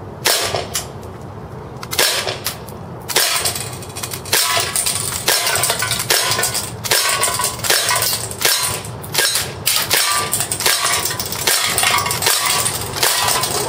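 Umarex-branded Glock Combat CO2 blowback airsoft pistol firing shot after shot, a few spaced shots at first and then about two a second, emptying a full magazine. BBs clink off an aluminium drink can and dent it.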